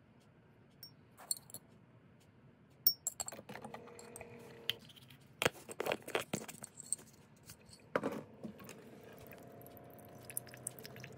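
A metal spoon clinks and taps against a glass jar and a ceramic mug as instant coffee is scooped in, several sharp clinks in the middle. Then a coffee maker runs with a steady hum and hot water streams into the mug near the end.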